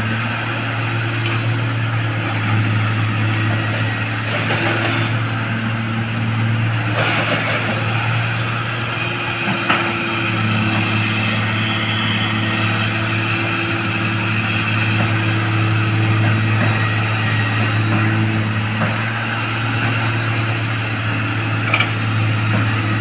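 Heavy diesel engine of earthmoving equipment running steadily as a low drone that shifts a little in pitch now and then. A few faint knocks come through over it.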